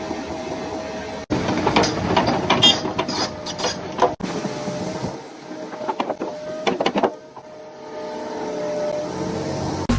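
Backhoe loader at work: a steady mechanical whine with scattered knocks and scraping, cut off abruptly twice.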